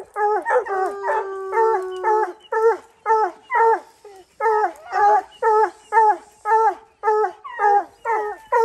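Hunting hounds barking steadily at a treed mountain lion, about two falling-pitched barks a second, with a second hound holding a long howl about a second in. The steady barking at the tree is the sign that the lion is treed and bayed.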